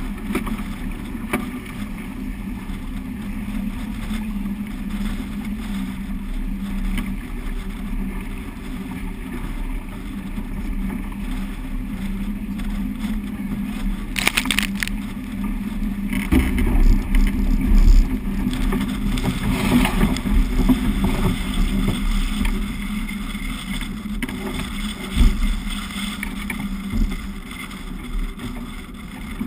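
Water rushing and splashing along the hull of a sailing yacht heeled hard in a stiff breeze, with a low wind rumble on the microphone. It surges louder a little past halfway, with a brief hiss of spray just before.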